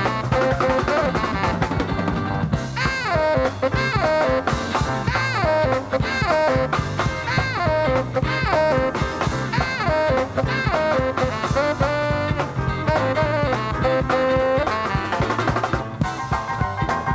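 Instrumental swing-style jazz music: a lead line plays short repeated phrases that slide up into each note, over a steady drum kit and bass rhythm.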